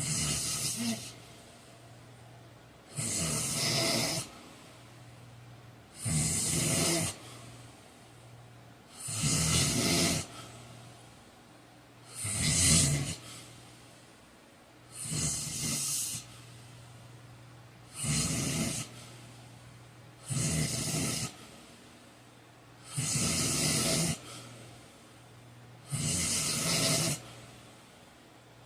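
A sleeping man snoring loudly and evenly, one snore about every three seconds, each lasting about a second.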